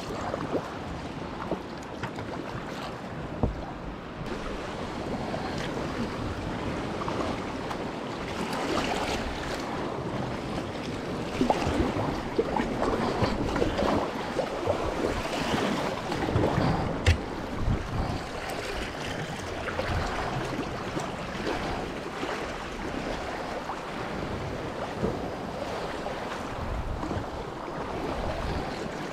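Sea kayak paddled through light swell: water sloshing and splashing around the hull and paddle blades and washing against nearby rocks, with wind on the microphone. The water noise swells louder in the middle stretch, and there is one sharp knock about seventeen seconds in.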